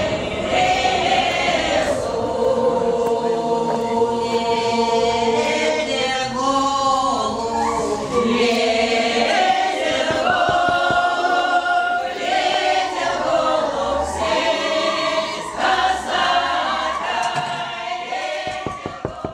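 A veterans' choir singing sustained chords, with scattered clicks in the mix near the end.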